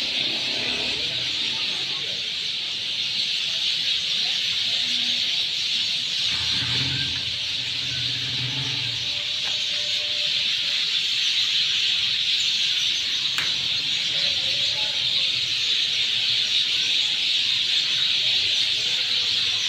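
Dense chorus of many small birds chirping at once, merging into a steady, high, unbroken chatter.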